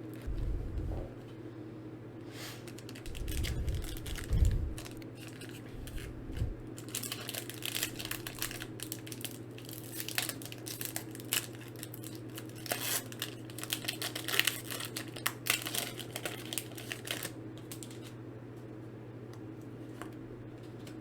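Plastic shrink wrap crinkling and tearing as a Pokémon card booster box is unwrapped, with irregular crackles and clicks and a few low handling thumps in the first seconds. A low steady hum runs underneath.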